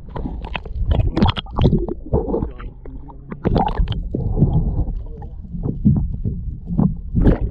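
Muffled rumble and irregular knocks and sloshes of a camera held underwater in its waterproof housing.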